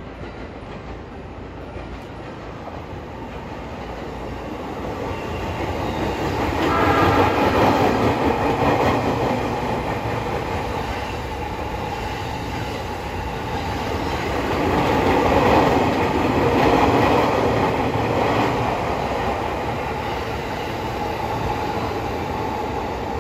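E231 series 1000 electric multiple unit passing through the station, its wheels running over the rails with a repeated pounding from badly flat-spotted wheels, the flats it is being sent to have trued. The noise swells to its loudest about seven seconds in and again around fifteen to seventeen seconds.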